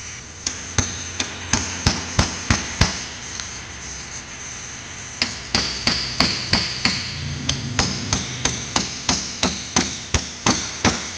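Hammer tapping on the pinion seal area of a power-steering rack, sharp metallic strikes about three a second. A first run of strikes stops about three seconds in, and the tapping resumes about two seconds later and keeps on.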